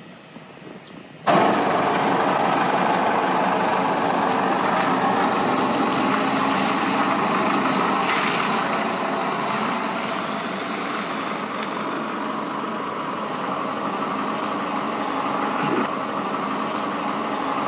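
Ford Ranger overlander truck's engine running steadily as the truck moves about outside, starting abruptly about a second in.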